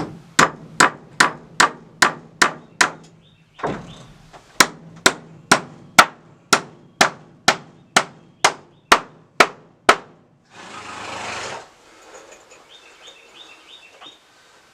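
Hammer blows driving a nail into wood, steady at about two strikes a second: a short run, a pause of about two seconds, then a longer run of around a dozen blows. A brief rushing noise follows about ten seconds in.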